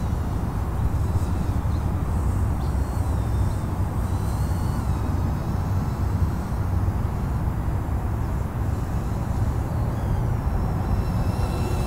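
Steady low outdoor rumble of wind on the microphone, with the faint high-pitched whine of a tiny whoop quadcopter's motors coming and going a few seconds in.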